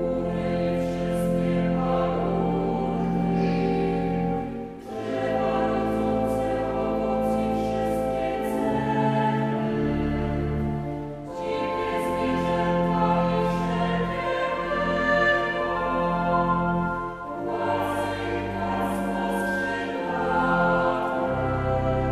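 Liturgical choir singing a Polish hymn in Latin-style chant phrasing over sustained pipe organ accompaniment, in phrases broken by short breaths about every six seconds.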